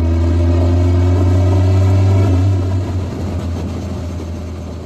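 A car engine running steadily with a deep, even hum; it fades over the last couple of seconds.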